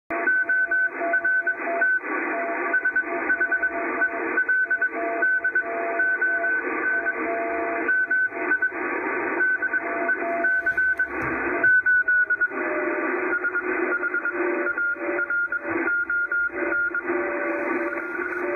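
Morse code heard through a ham radio receiver on the 80-meter band: rapid keyed beeps from at least two stations at different pitches over steady hiss and static. The signals shift to slightly different pitches about two-thirds of the way through.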